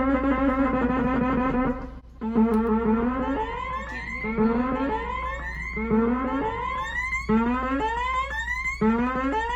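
Arturia MiniBrute analog synthesizer playing a held buzzy note. After about two seconds it turns into a repeating upward pitch sweep, rising and resetting about once a second, siren-like.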